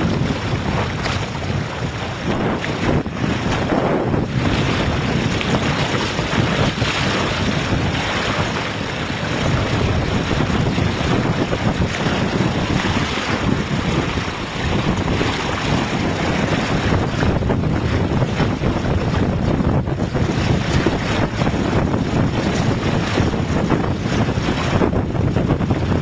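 Wind buffeting the microphone and water rushing and splashing along the hull of a small inflatable sailboat under way, a loud, steady rush throughout.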